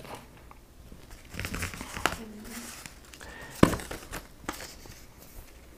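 Paper rustling and crinkling as sheets of construction paper and a paper bag are handled, with a few sharp taps, the sharpest about three and a half seconds in.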